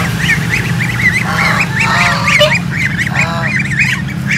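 Goslings peeping rapidly and continuously in short rising-and-falling chirps, with a few lower, longer calls from adult geese about one, two and three seconds in.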